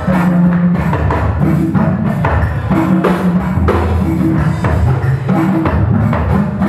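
Live band playing an upbeat dance beat: drum kit and percussion over a bass guitar line that steps between low notes.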